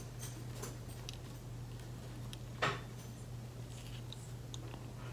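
Faint ticks and light taps of a pen tip dabbing on photo paper over a low steady hum, with one louder click about two and a half seconds in.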